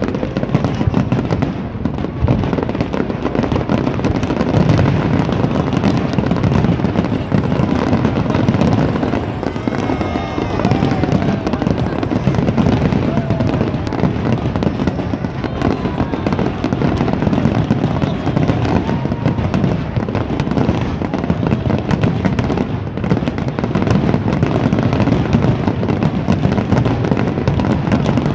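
Fireworks display barrage: many shells bursting close together in a dense, continuous crackle, loud and steady with no pause.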